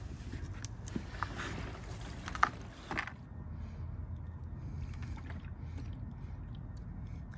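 Gasoline sloshing inside a plastic crosslinked-polyethylene motorcycle gas tank as it is handled and tipped, with a few light knocks in the first three seconds; after that, a steady low background rumble.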